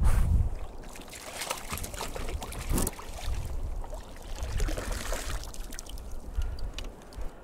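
Sea water sloshing and dripping as a plaice is scooped into a landing net and lifted out beside a kayak. Scattered knocks and clicks of the gear being handled run over a low rumble.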